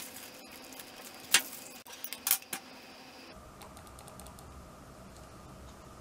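A few sharp plastic clicks and knocks from a smart wall switch and its snap-on cover plate being handled and pulled apart. The loudest comes about a second and a half in, then two quick clicks just after two seconds.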